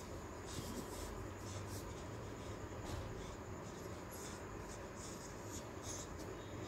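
Faint, irregular rustling and scratching as a latex-gloved hand strokes a beagle's fur and moves against the towel bedding, over a low steady hum.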